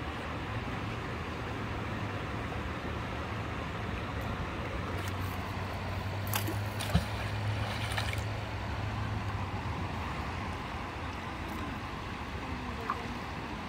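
Steady outdoor background noise with a low motor hum that swells in the middle and then fades, and a few sharp clicks and a knock about six to seven seconds in.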